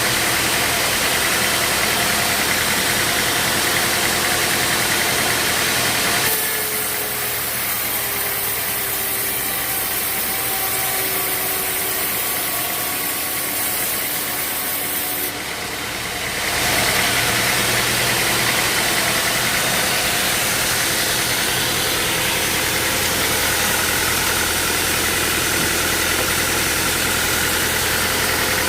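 Sawmill machinery running with a steady engine-like din. The sound changes abruptly about six seconds in, goes thinner with faint gliding tones, and switches back about ten seconds later.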